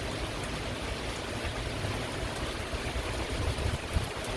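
Heavy thunderstorm rain coming down hard, a steady, even hiss, with an uneven low rumble underneath.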